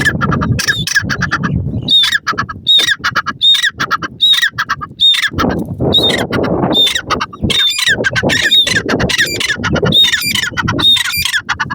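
Grey francolin (teetar) calling loudly: a fast series of high, ringing call notes repeated over and over, with quick clicking notes between them and a low rumble underneath.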